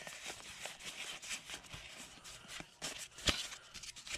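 Pokémon trading cards being handled and flipped through by hand: light rustling and small card-on-card clicks, with one sharper snap about three seconds in.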